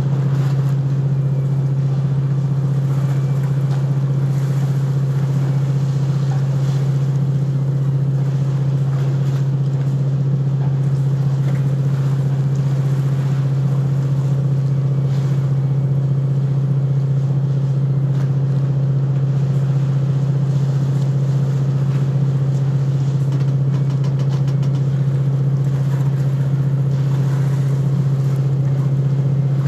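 A ship's diesel engine running with a steady, unchanging low drone, one strong hum with fainter tones above it.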